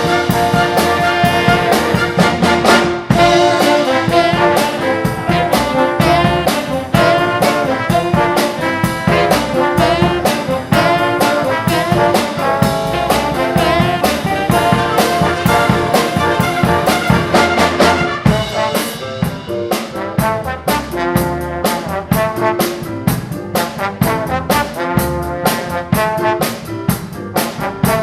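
Live big band playing an up-tempo dance number, the brass section of trumpets and trombones out front over a steady drum beat.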